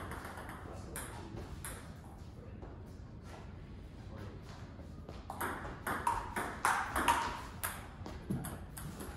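Table tennis ball clicking off paddles and the table in rallies. There are a few sharp hits in the first two seconds, a lull, then a quicker run of hits from about five seconds in.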